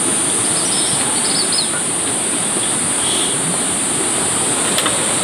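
Steady rushing of water outdoors, with a constant high-pitched drone over it. A few short bird chirps come about a second in and again near three seconds.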